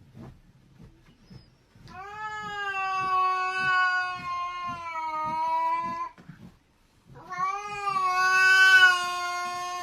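An animal giving two long, drawn-out calls at a nearly steady pitch. The first lasts about four seconds; the second starts about seven seconds in and is the louder of the two.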